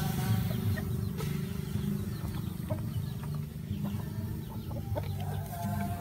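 Chickens clucking in the background, short scattered calls over a steady low rumble.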